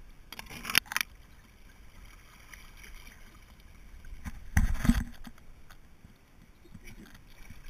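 Water sloshing and splashing around an inflatable river tube drifting downstream. There are a few short splashes or knocks in the first second and a louder splash or thump about five seconds in.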